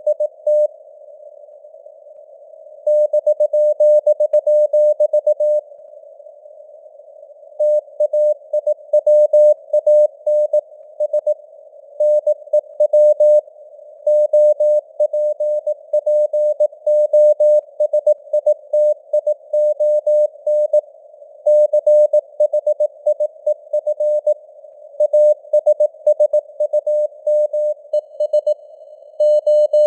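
Morse code (CW) at 18 words per minute: a steady-pitched beep keyed on and off in dots and dashes over a narrow band of simulated receiver hiss. Its strength drifts up and down a little, like radio fading (QSB). The sending stops twice for about two seconds in the first eight seconds.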